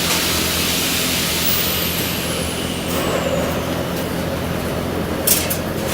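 Stick welding arc burning a 1/8-inch 6013 rod at about 120 amps: a steady crackling hiss over a low electrical hum, with a few sharper cracks near the end.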